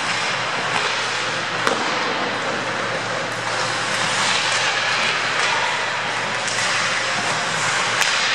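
Ice hockey play: skates scraping across the ice in a steady hiss, with a sharp clack of stick and puck about two seconds in and again near the end.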